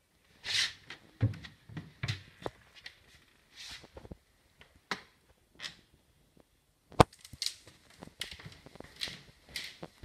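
Footsteps on wooden floorboards and rustling from handheld movement through a house, with one sharp knock about seven seconds in.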